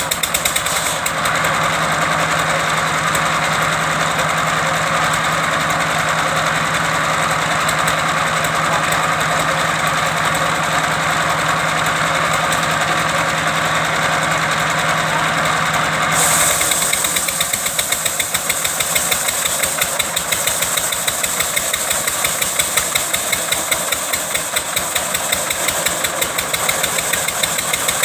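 Engine of a wood-cutting machine running with a steady, rapid chugging. From about a second in, a rasping cutting noise and a steady hum ride over it, then drop away suddenly about sixteen seconds in, leaving the engine running on its own.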